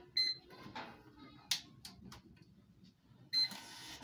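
Receipt printer beeping once as its cables are plugged in, with small clicks of handling. About three seconds in it beeps again and starts printing a receipt, a steady mechanical noise.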